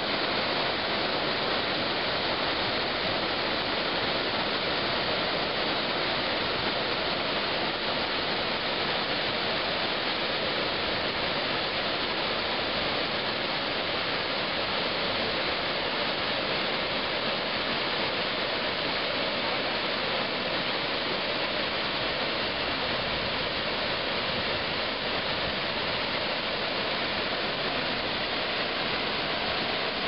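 A waterfall cascading down stepped rock: a steady, even rush of falling water that does not change in level.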